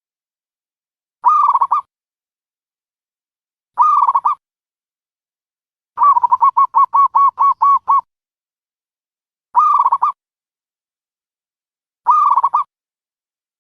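Dove calling: four short calls repeated every two and a half seconds or so, with a rapid run of about a dozen quick notes, some six a second, in the middle.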